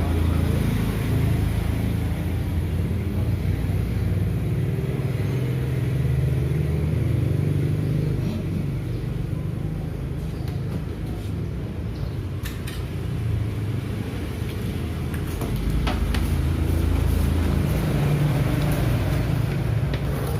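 A motor vehicle's engine running: a steady low rumble, with a few faint clicks.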